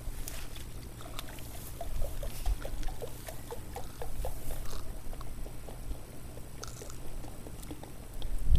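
Diet Coke glugging out of an upturned two-litre plastic bottle as it is poured into a pitcher: a quick, irregular run of gurgling pops for the first few seconds, with a low rumble of wind on the microphone underneath.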